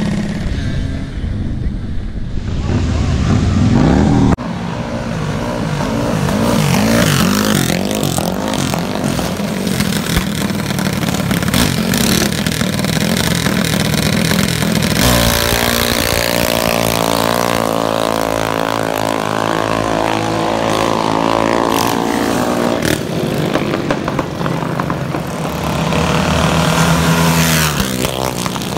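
Small gas minibike engines running and revving, the pitch rising and falling as the bikes speed up and slow down. Through the middle stretch an engine runs at a steady note before revving up again near the end, and the sound changes abruptly a few times.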